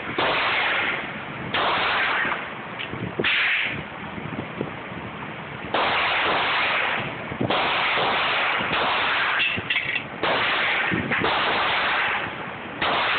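Handgun shots at an indoor range, about nine of them at uneven gaps of one to two and a half seconds. Each starts suddenly and rings on for about a second.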